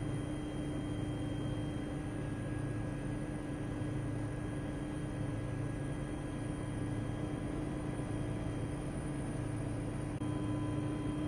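Steady engine and airflow drone inside a small aircraft's cabin in flight, with a constant low hum and a few steady tones over it.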